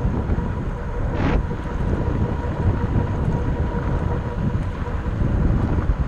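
Wind buffeting the microphone and tyre rumble from a Rad Power Bikes RadMini electric fat-tyre bike ridden along a dirt road, with a faint steady whine underneath. A short hiss comes about a second in.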